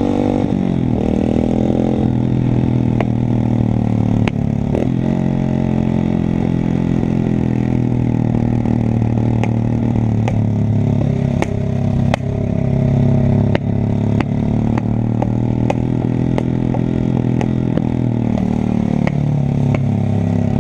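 125 cc pit bike engine running under way, its pitch rising and falling with the throttle and otherwise holding a steady note. Sharp clicks are scattered throughout.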